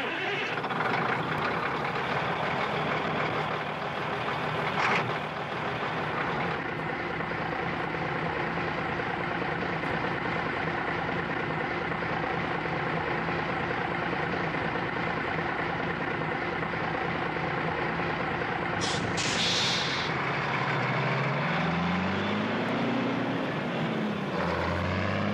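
Diesel truck engine idling, heard from inside the cab, with a brief sharp sound about five seconds in. Near the end comes a short air-brake hiss, then the engine revs up as the truck pulls away, drops back once for a gear change and rises again.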